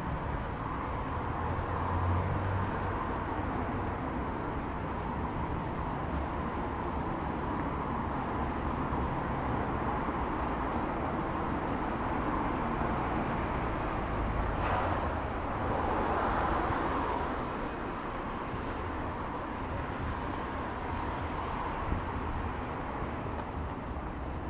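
Outdoor city street ambience: a steady wash of traffic noise, with a louder pass swelling up about two-thirds of the way through and then fading.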